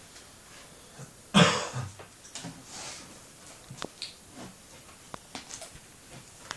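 A man coughs about a second and a half in, followed by a smaller cough, among scattered sharp clicks and taps of playing cards being handled and laid on a table.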